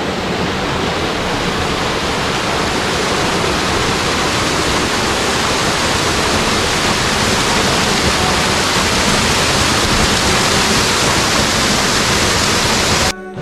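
Small waterfall pouring over a sandstone ledge into a pool, a loud steady rush of water heard close up, growing slightly louder as the microphone nears the falls. It cuts off abruptly near the end.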